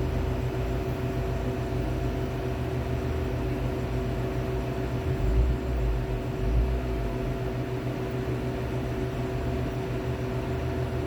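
Condensing unit with an R290 Copeland compressor running steadily on its first start, a steady hum with a few held tones, drawing its normal current. A couple of brief low bumps come about halfway through.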